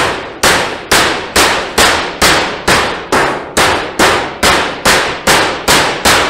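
A white plastic-headed roofer's mallet strikes a folded seam in painted sheet-steel roofing about fifteen times in quick, even succession, roughly two blows a second. Each blow is a sharp metallic bang with a brief ring. The blows are beating the seam open to reveal what was hidden under the fold.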